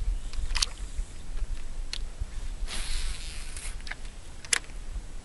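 Fishing rod and reel being worked from a boat: a few sharp clicks and a brief hiss about three seconds in, over a steady low rumble.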